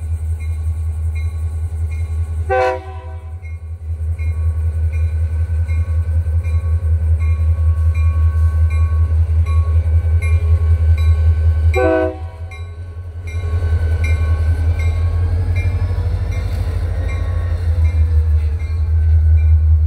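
Diesel freight locomotive running slowly past with a steady low engine hum, sounding two short horn toots, one about two and a half seconds in and one about twelve seconds in. In the second half, covered hopper cars roll by on the rails.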